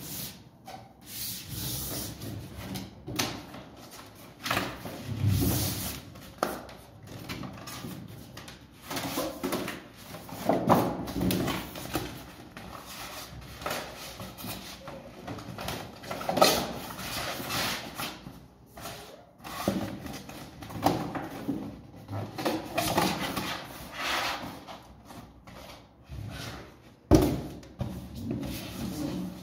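Stiff cardboard gift box being folded and assembled by hand: irregular rustling, scraping and creasing of the card with small taps, and a sharp knock near the end.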